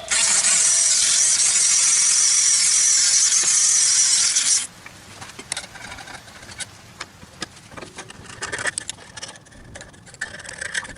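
A power tool abrading paint and rust off the steel of a car's differential and frame: a loud, steady grinding hiss for about four and a half seconds that cuts off suddenly. It is followed by quieter, irregular scraping and ticking on the metal.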